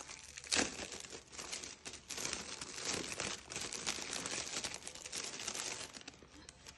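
Gift wrapping paper being torn open and crumpled, then metallic foil wrap crinkling as it is pulled away, a continuous crackling with a sharp rip about half a second in.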